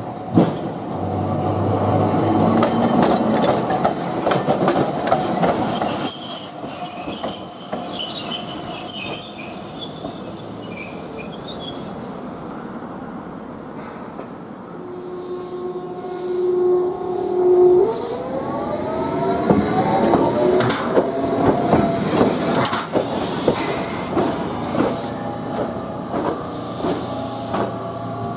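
Toyohashi Railway streetcars on a tight 11 m radius curve: steel wheels grinding and squealing high through the bend. Later a tram's electric motor whines steadily, then rises in pitch as it pulls away, and its wheels knock and clatter over the rail joints and points.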